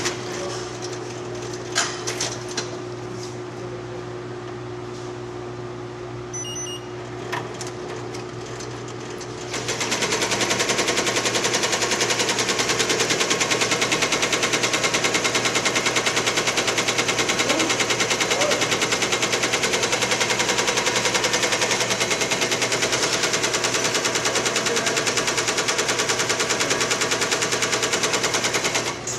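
A Tajima TMFX-C1202 two-head embroidery machine hums with a few clicks, then about a third of the way in starts stitching: a loud, rapid, even clatter of the needles that runs steadily on.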